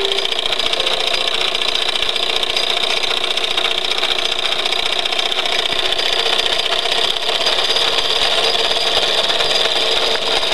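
Wilesco D36 toy steam engine running steadily with a fast, even rattle while it belt-drives the M99 organ mechanism between tunes. The last note of the previous tune stops at the very start.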